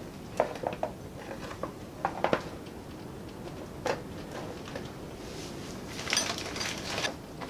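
Light metal clinks and knocks of hand tools and metal parts as a front fender is fitted to a mini bike frame, with a brief scraping rustle about six seconds in.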